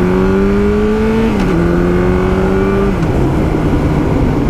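Yamaha R1's inline-four engine accelerating, its pitch rising, then dropping at an upshift about a second in and again at a second upshift about three seconds in, before settling to a steady pull, over wind noise.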